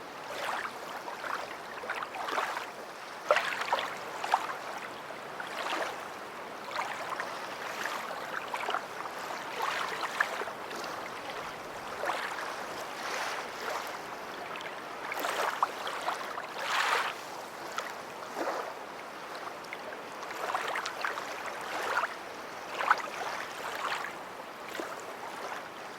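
Small waves lapping and splashing at the water's edge: a steady wash broken by short, irregular splashes every second or so.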